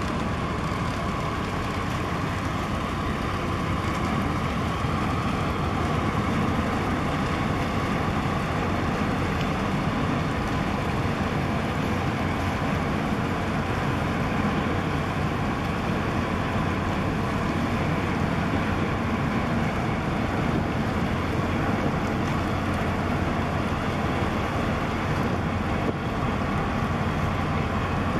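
Steady rumble of the container ship and the harbour tug working alongside it passing close by, mixed with wind noise on the microphone.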